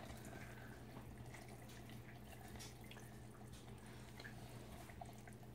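Faint dripping and scraping as water is poured into a canister and a wooden craft stick stirs in the mold powder, over a low steady hum.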